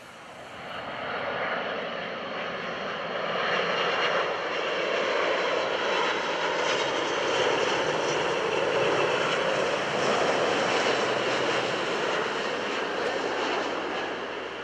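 Twin-engine jet airliner, a Korean Air Airbus A330, on final approach with gear down. Its engine noise swells in over the first couple of seconds, holds steady and loud, then eases off a little near the end.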